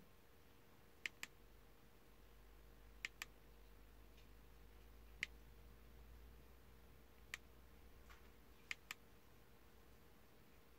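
Faint fingertip taps on a car head unit's touchscreen glass, about eight in all, some single and some in quick pairs, over near silence with a faint steady hum.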